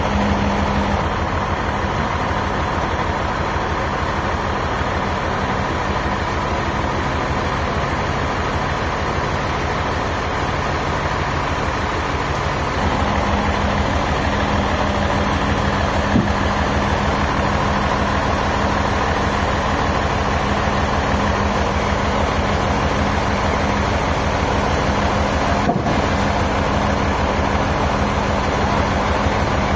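An engine running steadily with a fast, even low pulse, stepping up slightly in level about thirteen seconds in.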